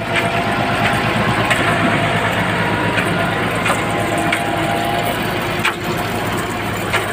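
Farm tractor engine running steadily as it tows a trailer through mud, with occasional sharp knocks.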